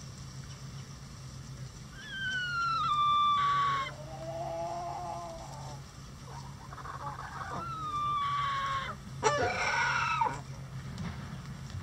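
Chickens calling. Two drawn-out calls fall in pitch, level off and end harshly, about two seconds in and again about eight seconds in, with lower clucks between them and a quick burst of squawks near the end. A faint steady low hum runs underneath.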